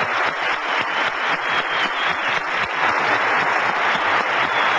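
Audience applauding: dense, steady clapping that grows a little louder toward the end.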